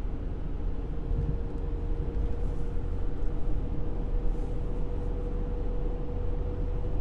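Car cabin noise at highway speed: a steady low rumble of tyres on the road and the engine, with one thin steady hum held at a single pitch throughout.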